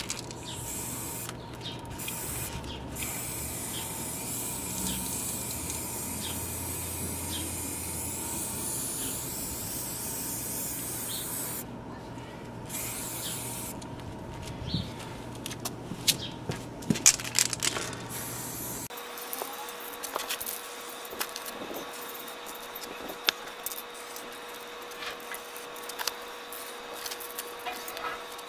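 Aerosol spray-paint can hissing in long bursts with a few short breaks. After about nineteen seconds the hiss stops, leaving only scattered light clicks.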